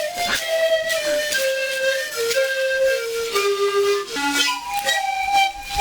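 Music: a high, piping melody that steps down in pitch note by note and then jumps back up, over regular percussive beats.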